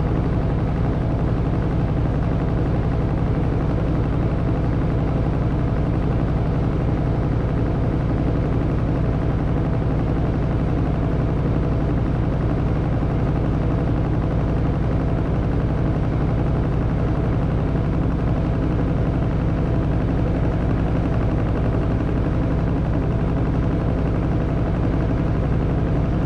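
Samsung front-load washing machine in its spin cycle, the drum turning at high speed with a steady, fast-pulsing hum.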